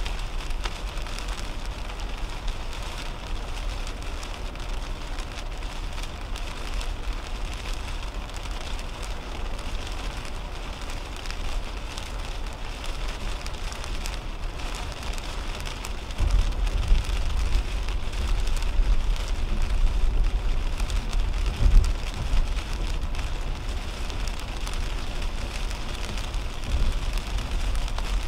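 Rain hitting a car's windshield and roof at highway speed, over steady tyre and road noise on the wet interstate. About halfway through, a deeper low rumble comes in and stays louder, with a few heavier thumps.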